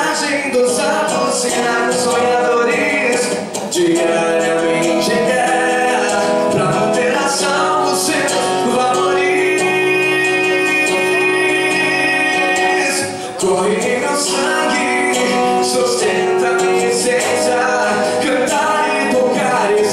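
A male singer singing into a microphone over an acoustic guitar, a live acoustic pop-rock song, with one long held note about ten seconds in.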